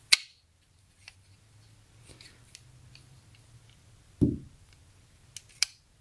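Clicks of a sliding patio door handle's latch mechanism being worked by hand: a sharp click at the start, a few faint ticks, then two sharp clicks near the end. A dull thump comes about four seconds in.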